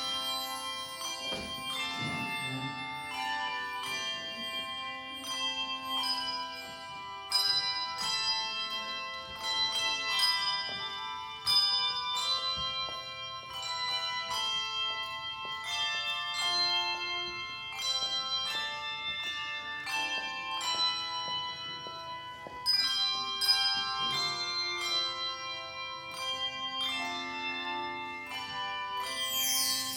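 Handbell choir playing a piece of music: several tuned handbells rung together in chords, each note ringing on before the next chord is struck.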